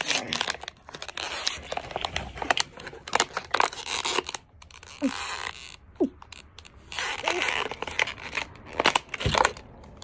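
Thin plastic water bottle crinkling and crackling in repeated bursts as it is squeezed and drunk from, with a few short gulps in between.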